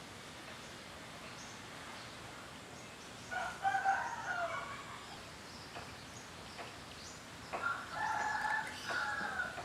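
Rooster crowing twice: once about three seconds in, and again in a longer crow near the end.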